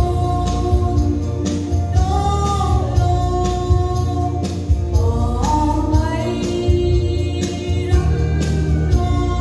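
A girl singing a gospel song solo into a microphone over an accompaniment with a steady beat and heavy bass, amplified through the church's loudspeakers.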